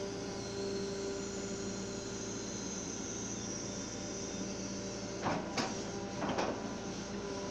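Hydraulic excavator running under load as it digs, a steady engine drone with a constant whine, with a few short knocks and scrapes of the bucket in the soil about two-thirds of the way through.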